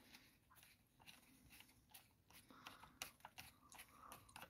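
Faint, scattered small clicks and light scrapes, growing a little busier near the end: a bolt and washer being handled and threaded onto an aluminium torque arm at an ebike's rear axle.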